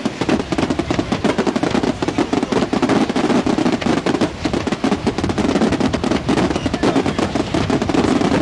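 Daytime aerial fireworks going off in a dense, continuous crackle of many small bangs in rapid succession.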